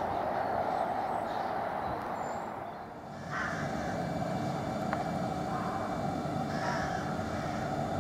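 Steady rumble of a train running along the line, dipping briefly about three seconds in and then going on; over it a bird calls twice.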